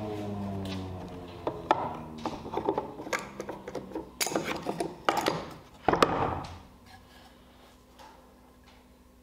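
Table saw coasting down after a cut, its hum falling in pitch and fading over the first second. Then a metal clamp is released and a wooden workpiece is lifted out of a plywood jig: a run of clicks, rattles and wooden knocks, the loudest about six seconds in.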